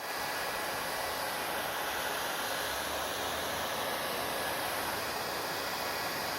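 Hair dryer running steadily: an even hiss of blown air that does not change.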